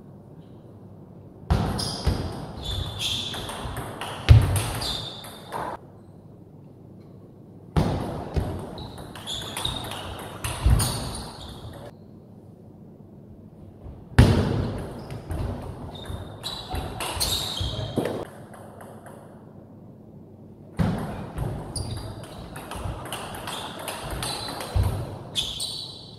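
Four table tennis rallies, each a quick run of sharp clicks as the ball strikes the rackets and the table, separated by short, quieter gaps.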